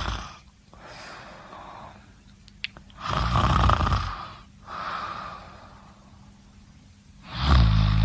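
A person snoring in sleep. There are two loud snores with a low buzzing bottom, one about three seconds in and one near the end, with quieter breaths between them.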